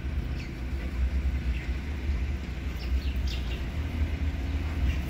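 Steady low rumble with a few faint, short high chirps.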